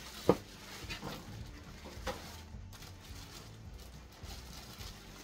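Handling knocks from a stainless-steel electric flat top griddle being moved about on a kitchen counter: one sharp knock about a third of a second in, then a couple of softer knocks about a second and two seconds in.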